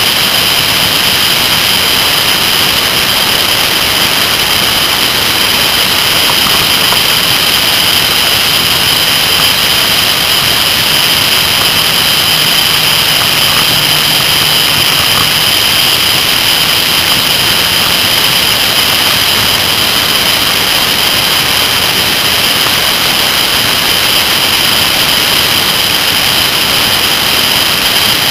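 Wind rushing over a motorcycle-mounted camera at road speed: a loud, steady hiss, with the Kawasaki ZR-7S's engine faint underneath.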